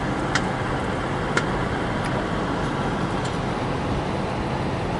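Popcorn vending machine at work: a steady rushing hum with a few isolated sharp pops, spaced about a second apart, as kernels start popping in its built-in microwave oven.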